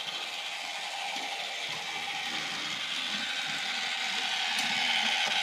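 LEGO Duplo toy train's motor and gears whirring steadily as the locomotive runs along plastic track, growing a little louder toward the end.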